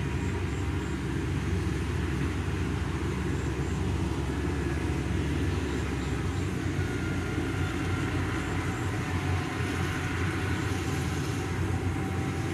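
Kubota DC70 combine harvester running under load as it cuts and threshes rice: a steady diesel engine drone with the noise of the cutting and threshing gear.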